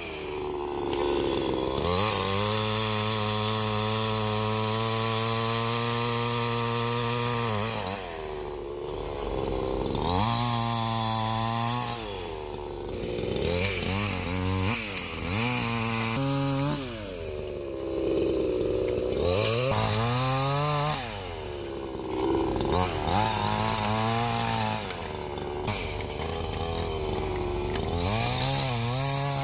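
Two-stroke petrol chainsaw cutting through tree roots and branches. It is held at high revs for about six seconds, then revved up in a run of shorter pulls on the throttle, dropping back to a lower idle between them.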